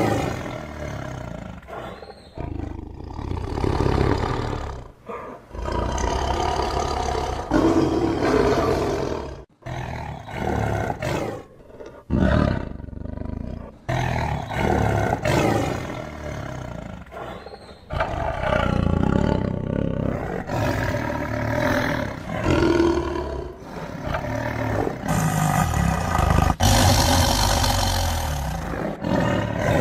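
Tiger roaring and growling: a series of deep, loud calls, each a few seconds long, with short breaks between them.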